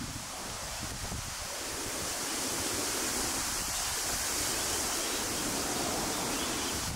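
Steady outdoor hiss that swells slightly about two seconds in, with wind rumbling on the microphone underneath.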